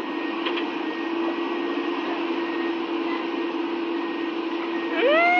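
Excavator running with a steady drone. Near the end a person's drawn-out call rises and then holds.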